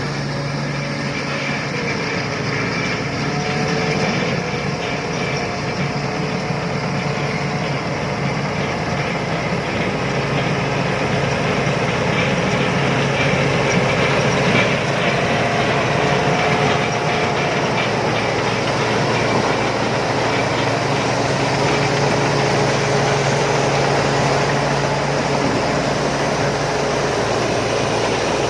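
Rice combine harvester running steadily: a continuous engine and machinery drone with faint tones that drift slowly up and down in pitch.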